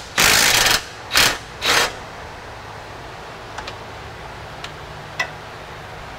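Cordless electric ratchet spinning a 15mm swivel-head deep-well socket on an extension to run off an alternator nut: one longer burst, then two short ones, all within the first two seconds. A few faint clicks follow.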